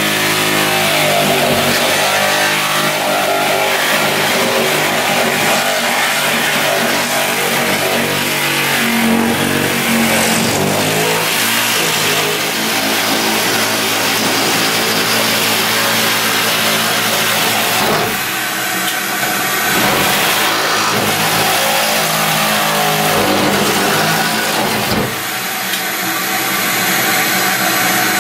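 Corded reciprocating saw cutting through the tub wall, its motor and blade running steadily with the pitch shifting now and then. A shop vacuum runs alongside it, pulling the dust off at the blade.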